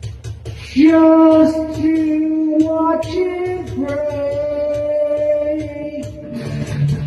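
A song: a singing voice holds long notes over electric guitar and a steady low backing. About six seconds in, the voice stops and guitar strumming carries on.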